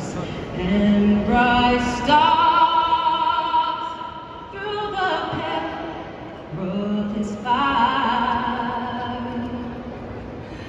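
A woman singing the pre-match anthem solo over the stadium sound system, holding long notes with vibrato, in two phrases with a short soft gap between them.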